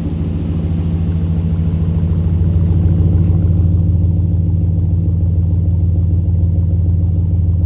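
Ram 1500 V8 running through a new Kuluin aftermarket muffler fitted in place of the large stock muffler, giving a deep, steady V8 exhaust rumble at idle that grows a little louder over the first few seconds.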